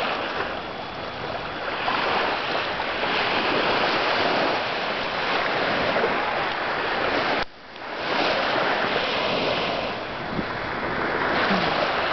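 Small waves washing onto a sandy beach, a steady rush mixed with wind on the microphone, dropping away briefly about seven and a half seconds in.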